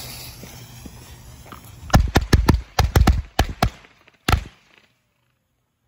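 A firecracker fuse hissing, then a bundle of small red firecrackers going off: about ten sharp bangs in quick succession over two seconds, with a last one a little later.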